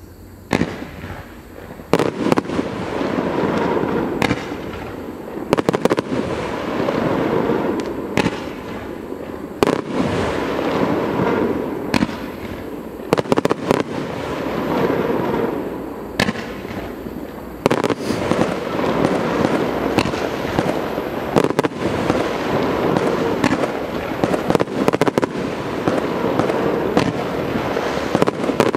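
A Celtic Fireworks 'Bang Tidy' 40-shot, 30 mm firework cake firing its full sequence. Sharp bangs come about every second or two over a continuous rushing noise, starting about half a second in. The shots come faster and closer together through the second half.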